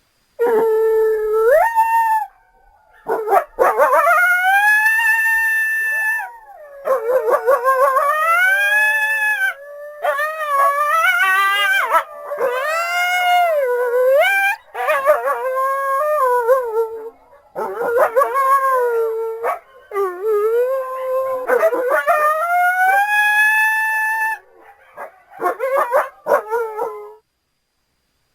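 Cynodictis creature calls built from coyote and hyena recordings: a run of howls and yips that glide up and down in pitch, about a dozen calls of one to three seconds each with short breaks between them.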